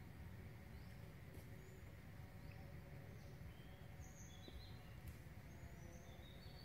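Quiet outdoor ambience: a steady low rumble with scattered short, high bird chirps.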